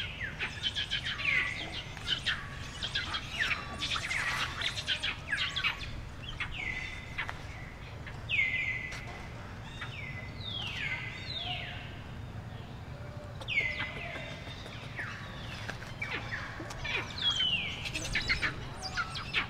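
High-pitched animal calls repeated throughout, each dropping sharply in pitch and then briefly holding a lower note, over a steady low background hum.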